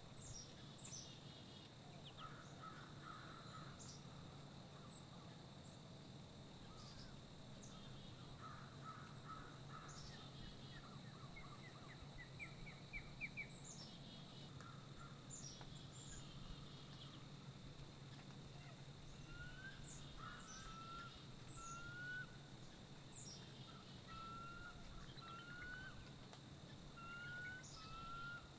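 Faint birdsong: several small birds chirping and calling, with a quick trill about halfway through and a short rising note repeated about once a second in the second half.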